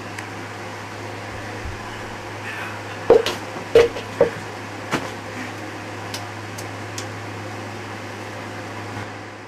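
Steady low hum of an appliance or fan, with a handful of short sharp knocks and taps clustered about three to five seconds in.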